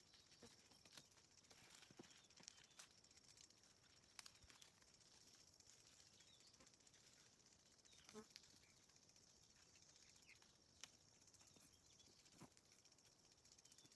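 Near silence: faint outdoor ambience with a thin, high, steady tone and a few faint scattered ticks.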